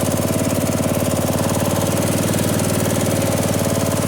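Riding lawn mower's small engine running steadily at an even, unchanging speed, idling.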